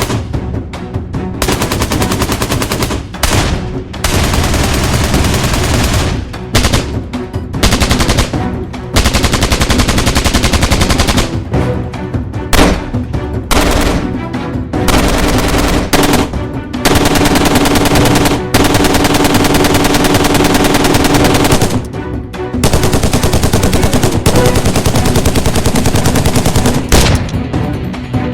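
AK-47 Kalashnikov rifle firing full-automatic, in a string of long bursts of rapid shots separated by short pauses.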